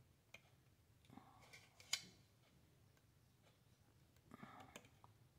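Faint scraping and light clicks of a hobby knife blade picking at drilled holes in a plastic model car body, with one sharper click about two seconds in.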